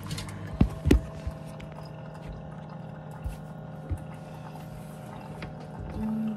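Keurig single-serve coffee maker brewing: a steady pump hum with coffee running into the mug. A few sharp knocks sound in the first second or so.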